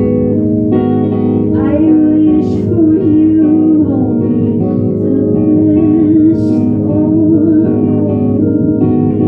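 Guitar music with a wavering, held melody line over steady strummed or plucked chords.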